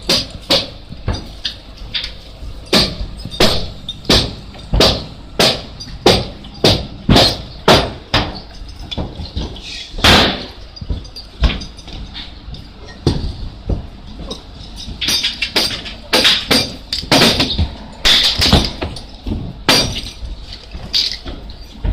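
Repeated hammer blows on timber as a wooden house frame is assembled, at an uneven pace of roughly one or two strikes a second.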